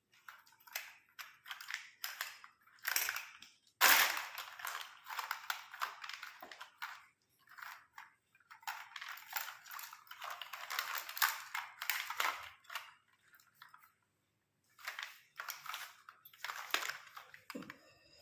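Kittens playing, with irregular bursts of scratchy, crinkling rustles and brief pauses between them.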